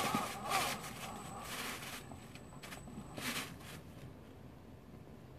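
3D-printed RC snowcat's electric drive and plastic tracks crawling under a heavy load, with irregular scraping noise and a thin high whine for about two seconds in the middle. The noise comes again around three to four seconds in, then dies down.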